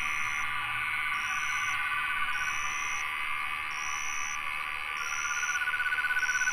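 Tropical rainforest insect chorus: a high, thin note repeats about every second over a dense shrill hum. A rapid pulsing trill sounds for the first couple of seconds and returns, louder, near the end.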